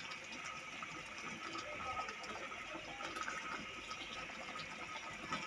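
Faint bubbling of a thick chicken Manchurian gravy simmering in a nonstick wok, with a spatula stirring through it; the sauce is thickening after flour paste was added.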